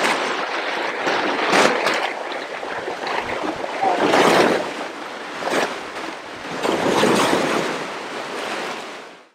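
Ocean surf breaking and washing over lava rocks, a steady rush that swells in several surges, about every one to three seconds, and fades out near the end.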